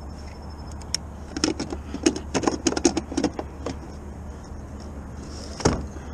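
Hard plastic clicks and knocks from gear being handled in a plastic kayak: a quick run of clicks in the middle, then a single louder knock near the end, over a steady low wind rumble.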